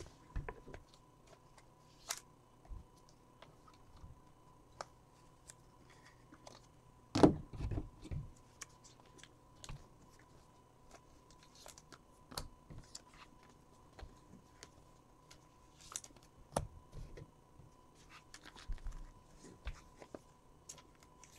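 Scattered light clicks and taps of trading cards being handled on a tabletop, with a louder bump about seven seconds in and a faint steady tone underneath.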